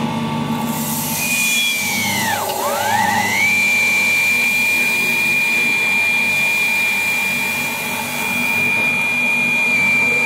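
JMS60 colloid mill running with a steady high whine, while sesame seeds pour into its stainless steel hopper with a hiss. About two seconds in, the whine dips sharply and climbs back to pitch; the hiss stops near the end.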